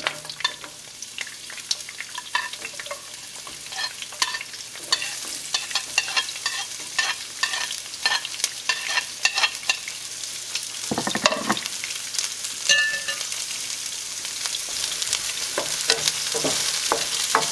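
Sliced white onions sizzling as they drop into very hot oil in a frying pan, with many short clicks of metal tongs against the plate and pan. Toward the end the onions are stirred, and the sizzle grows a little louder.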